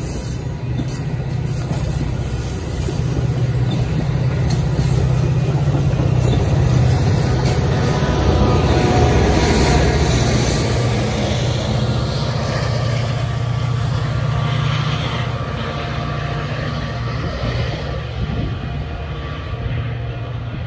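Metra bilevel commuter train rolling past, a loud steady low rumble of the cars on the rails that swells in the middle and eases off as the train pulls away.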